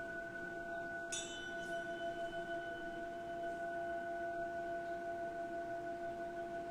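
Crystal quartz singing bowls ringing with steady, sustained tones. About a second in, a bright metal chime is struck and rings out over them, with a fainter second strike just after.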